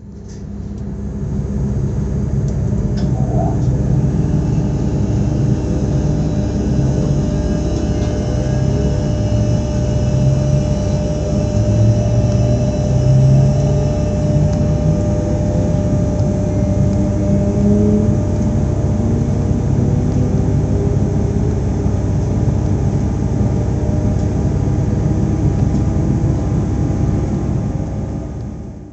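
Z 2N (Z 20500-series) electric multiple unit running, its traction equipment humming in tones that climb in steps as the train gathers speed, over a steady rumble.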